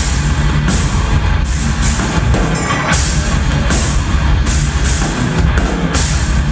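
Live rock band playing loudly: electric guitars, keyboard and drum kit, with cymbal crashes recurring about once a second over a heavy, steady low end.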